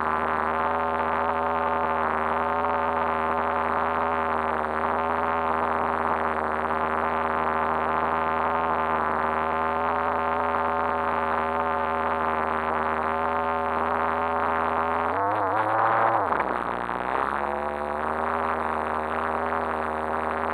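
RC car engine idling steadily, its pitch wavering briefly about three quarters of the way through. It sounds muffled, heard through a fully sealed camera housing.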